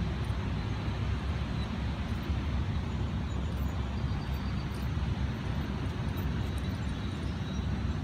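Steady low rumble of distant road traffic, with no distinct events.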